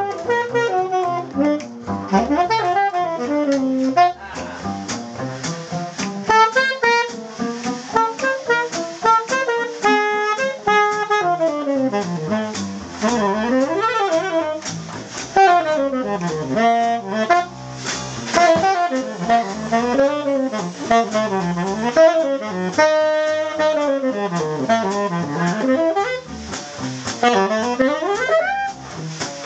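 Live small-group jazz: a saxophone plays an improvised lead of quick runs that sweep up and down, over a plucked double bass.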